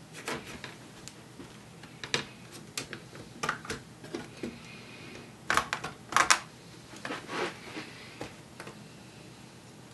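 Plastic clips of a Dell Latitude 3540 laptop's palm rest snapping loose as it is pried up from the base, a series of irregular clicks and snaps, with the loudest cluster a little past halfway.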